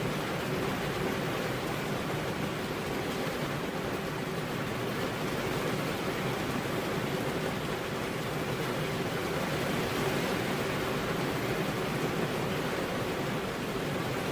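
Steady rain, an even hiss with no single drops standing out and no change in level.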